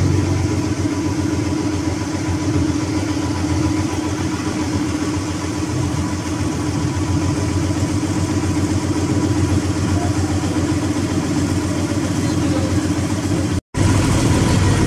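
Boat engine running at a steady pace, a continuous low drone. It cuts out for a split second near the end.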